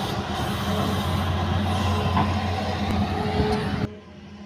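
Hitachi hydraulic excavator's diesel engine running loud and steady under hydraulic load as the boom and bucket work over the truck. It cuts off suddenly near the end, leaving a quieter engine idling.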